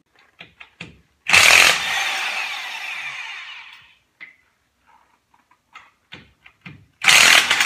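Craftsman corded electric impact wrench hammering wheel lug nuts loose: two loud bursts, about a second in and near the end, each trailing off as the motor spins down. Light clicks and knocks come between them as the socket is moved to the next nut.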